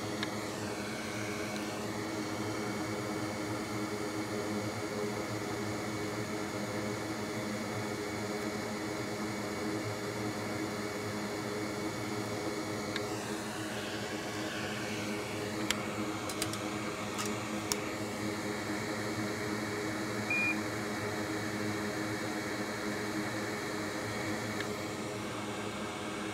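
Steady fan whir with an even low hum, unchanging throughout, with a couple of faint ticks around the middle.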